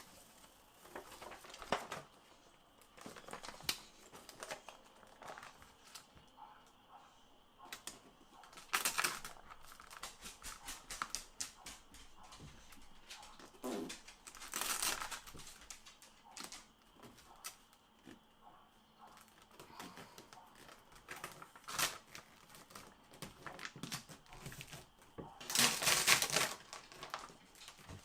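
Peel-and-stick backsplash tiles being handled and put up: crinkling and the rasp of backing paper being peeled off, with small taps and clicks. A few louder rustling bursts stand out, the longest near the end.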